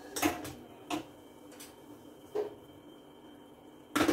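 Kitchen cookware and utensils being handled at a gas stove: a few separate knocks and clicks of pans and utensils, the loudest just after the start and another right at the end.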